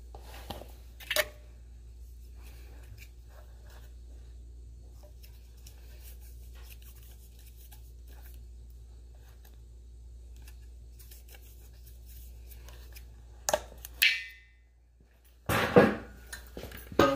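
Thread-seal tape being wrapped and handled on a brass tank-tee assembly, with soft scratching and rustling, a few sharp knocks and clinks of the metal fittings, and a brief metallic ring about fourteen seconds in. The loudest knocks come near the end. A low background hum cuts off about fourteen seconds in.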